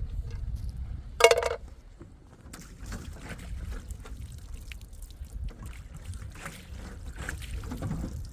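Wind buffeting the microphone with a steady low rumble. About a second in there is a short, loud pitched cry, and after it come rustling and scattered light clicks.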